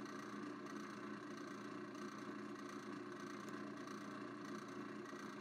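Drill press running steadily with a faint, even hum while the workpiece spinning in its chuck is fed down onto an upturned drill bit held in the vise, drilling a centre hole.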